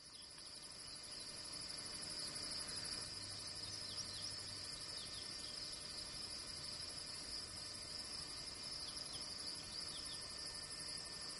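A steady chorus of insects trilling high and continuously, fading in over the first couple of seconds, with short falling chirps now and then over it.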